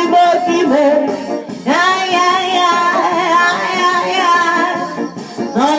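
A woman singing, with long held notes that waver and bend in pitch; one note is held for a couple of seconds mid-way and another begins near the end.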